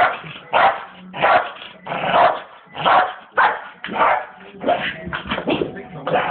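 Staffordshire bull terrier barking over and over, about ten loud barks at a steady pace of roughly three every two seconds.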